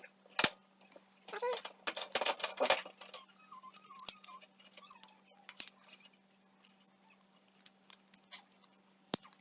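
Scattered sharp clicks and knocks of metal fixture parts and wires being handled, over a steady low hum, with a faint wavering whine for about a second near the middle.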